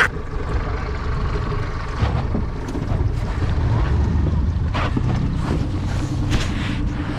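Wind buffeting the microphone as a steady low rumble, with a few faint knocks, and a faint steady hum coming in about five seconds in.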